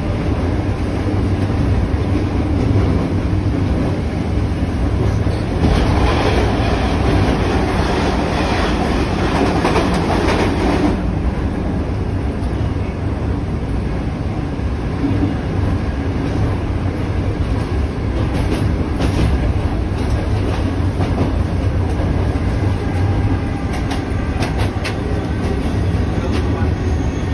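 Cairo Metro Line 1 Alstom 1981-stock (5700 series) train running at speed, heard from inside the carriage: a steady low rumble with the clickety-clack of wheels on rail joints. A louder, brighter rush of noise swells about six seconds in and lasts about five seconds.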